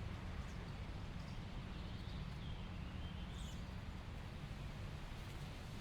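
Faint small-bird calls, a few wavering chirps about two to three seconds in, over a steady low outdoor rumble.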